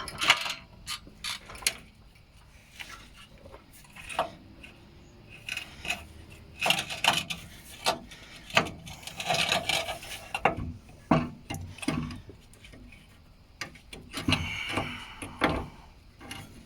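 Metal clanks, knocks and scraping as a loosened engine mount is wiggled and pried out from between the engine and frame, in irregular bursts with pauses between.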